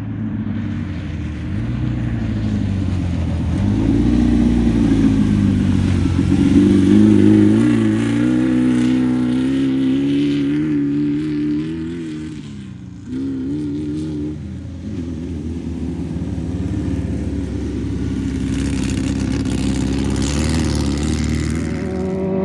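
Class 11 off-road race car's air-cooled VW flat-four engine revving hard as the car races by. The engine note rises and falls with throttle and gear changes, with a brief sudden drop about halfway through before engine noise picks up again.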